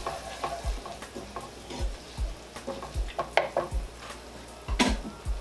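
An almond-coloured flour-and-oil roux sizzling in a skillet while a utensil stirs it, with repeated short scrapes and knocks against the pan, about one or two a second.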